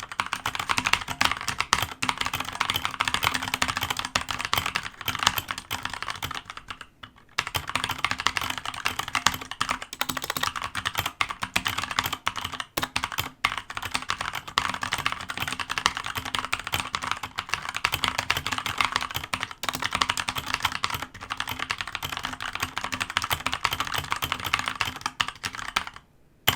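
Fast, continuous typing on a Dierya DK63 60% mechanical keyboard with thin ABS keycaps, with a short pause about seven seconds in. The sound is higher-pitched and clacky, with a slight rattle from the screw-in stabilizers, damped by foam under the PCB.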